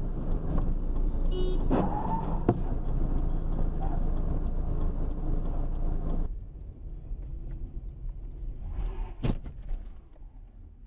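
Car running on the road with a steady low rumble of engine and road noise, and a few sharp knocks, the loudest about two and a half seconds in. About six seconds in the sound drops abruptly to a quieter, duller run of road noise.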